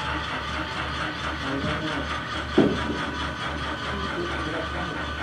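HO scale model train running on the layout: a steady low hum that pulses regularly, under faint room chatter. One short thump sounds about halfway through.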